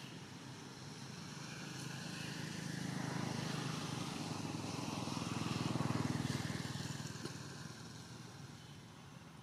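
A motor vehicle's engine passing by: a steady hum that grows louder over a few seconds, is loudest just past the middle, then fades away.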